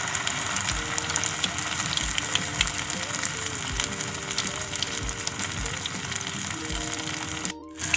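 Chicken nuggets frying in hot oil: a steady sizzle with small crackles, over soft background music. The sound cuts out for a moment near the end.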